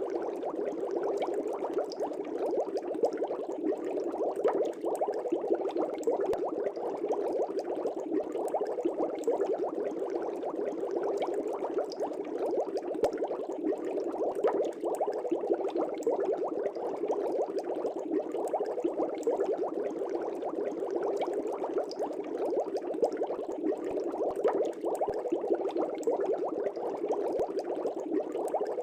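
Aquarium air bubbles bubbling continuously in a fish tank: a steady, dense stream of small pops and gurgles with no pause.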